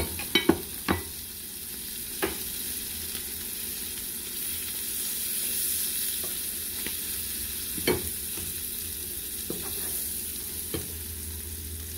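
Slices of queso de rancho frying in a little oil in a nonstick skillet: a steady sizzle. A few sharp knocks come as a spatula lifts the cheese out and a plate is set down, the loudest near the start and about eight seconds in.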